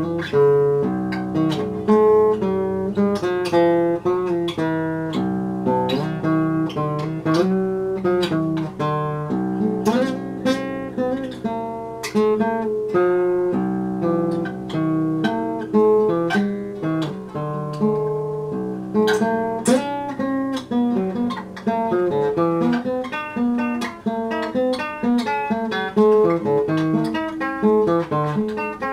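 Acoustic guitar music: a run of plucked notes and chords.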